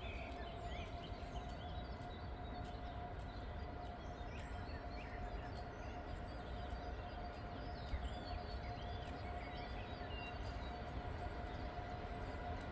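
Birds chirping over a steady faint whine and a low rumble from a Siemens ES64F4 EuroSprinter electric locomotive approaching from far off.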